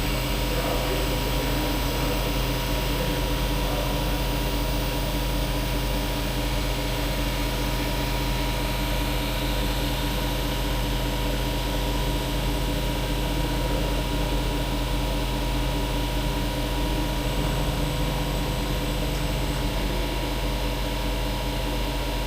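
CNC machine running: a steady machine hum with several fixed tones over a constant hiss from its motors and cooling fans.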